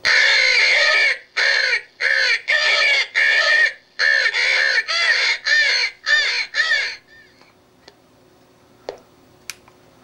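Cass Creek electronic crow caller playing recorded crow caws through its plug-in extension speaker: a run of about a dozen caws, the first one long and the rest short, stopping about seven seconds in.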